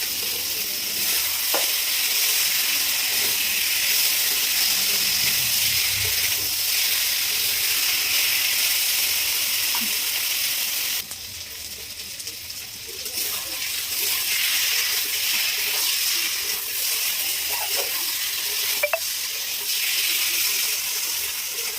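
Prawns and taro stolons sizzling in hot oil in a pan while being stirred, with a few light clicks of the stirring utensil. The sizzle drops for a couple of seconds about halfway through, then picks up again.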